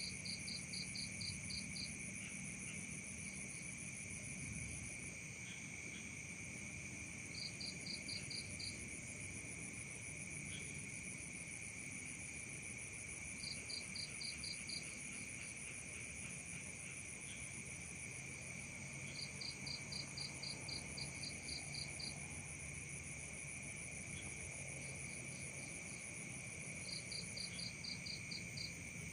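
Night chorus of crickets and other insects: several steady high-pitched trills at different pitches. A short bout of quick, even chirps, about six a second, breaks in every five or six seconds, six to twelve chirps at a time.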